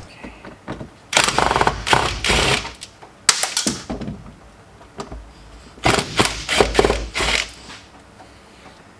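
Plastic interior trim being worked loose and pulled out of a car cabin: three bursts of rapid clicking and rattling, with quieter pauses between.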